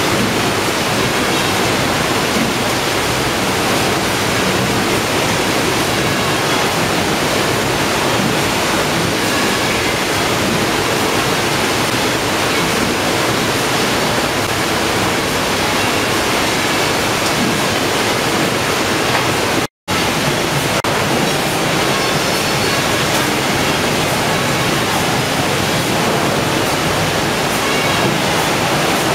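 Steady, even rushing noise of a fish-processing line, its conveyors and running water together, with a very brief dropout about twenty seconds in.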